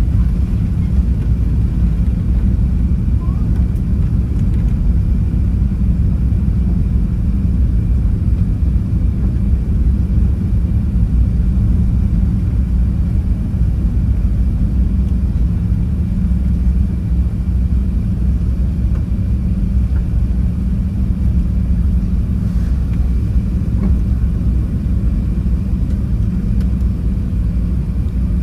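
Airbus A380 jet engines at takeoff power, heard inside the cabin: a steady, loud low rumble through the end of the takeoff run, lift-off and the initial climb.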